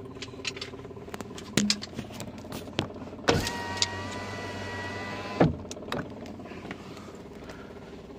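A car's electric window motor runs as a steady whine for about two seconds, starting and stopping with a sharp clunk. Scattered clicks and knocks come before it.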